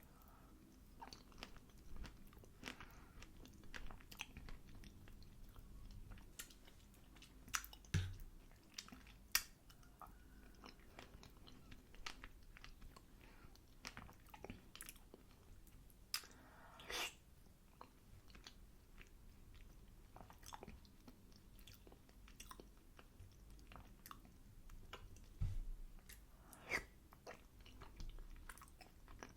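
A person chewing apple and berry crumble, with soft crunches and small wet mouth clicks at irregular intervals.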